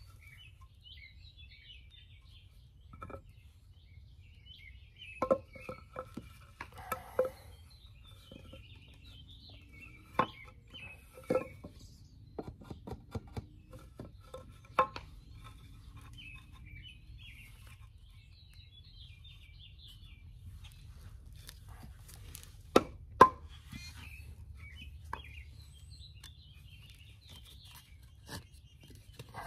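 Rubber mallet knocking on a wooden 2x4 frame, tapping glued dowel joints home: scattered single knocks and quick pairs, the hardest pair about three quarters of the way through. Birds chirp faintly throughout.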